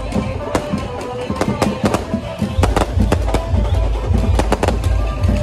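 Fireworks and firecrackers banging in quick, irregular succession over loud loudspeaker music with a heavy bass beat, which gets heavier about halfway through.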